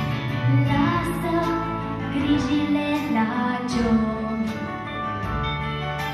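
A young woman singing into a microphone over instrumental accompaniment.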